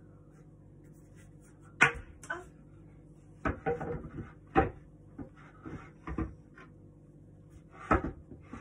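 Wooden table parts knocking and clattering as a small flat-pack table is handled and its top set onto the leg frame: a sharp knock about two seconds in, a quick run of knocks a little later, lighter taps, and another sharp knock near the end. A steady low hum runs underneath.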